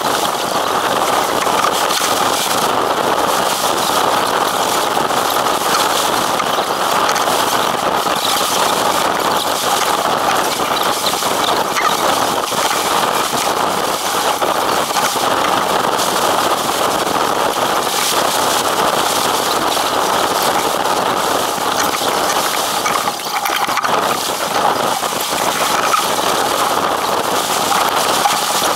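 Wind buffeting the microphone and water rushing and splashing past the hull of a sailing yacht under way: a loud, steady rush with a constant crackle.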